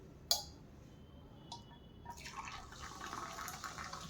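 A light clink, then from about two seconds in liquid being poured out, trickling and dripping.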